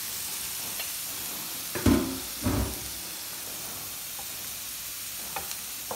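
Shrimp and mussels sizzling on the ribbed plate of an electric contact grill, a steady hiss, with two dull knocks about two seconds in.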